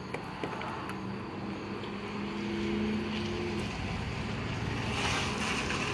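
A steady engine hum with a couple of held low tones, strongest in the middle, and a few faint clicks near the start.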